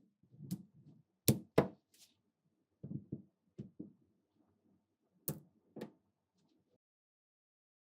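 Small neodymium magnetic balls snapping together as they are placed: sharp separate clicks, two close together just over a second in and two more after five seconds, with softer clacks and handling between them.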